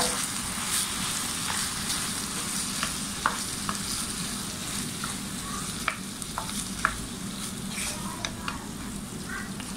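Minced chicken and tomato sizzling in a wok while a wooden spoon stirs it, with scattered light taps and scrapes of the spoon against the pan.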